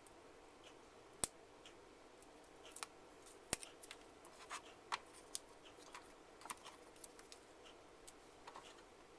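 Faint clicks, taps and light scraping as small plastic parts and adhesive pads are handled by hand, with two sharper clicks, about a second and about three and a half seconds in.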